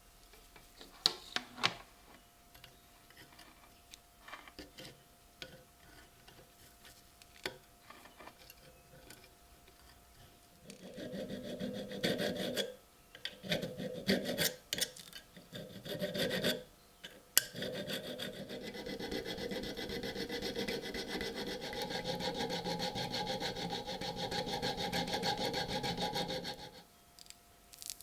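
Abrasive work on the old knife: scattered light taps and scrapes, then broken bursts of rasping, settling into a steady rasping rub for about the last ten seconds.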